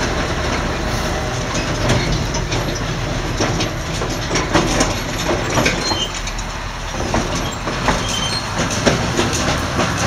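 Grain truck with a drawbar trailer driving over harvested stubble: its engine runs under a steady rattle, with many irregular knocks and clatters from the truck and trailer bodies jolting over the uneven ground.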